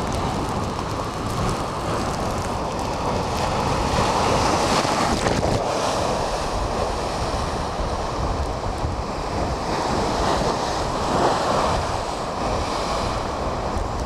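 Storm-driven lake waves surging and splashing around a post at the water's edge, with strong wind buffeting the microphone. The surf swells louder about four seconds in and again about eleven seconds in.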